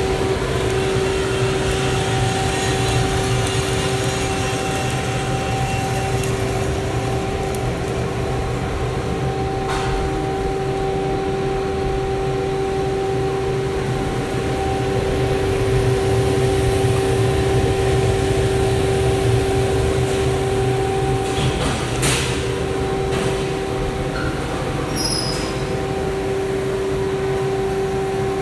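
Vina Roaster commercial drum coffee roaster running: a steady mechanical hum of its motors and fans with a constant tone held throughout. A couple of light knocks come about ten seconds in and again past the twenty-second mark.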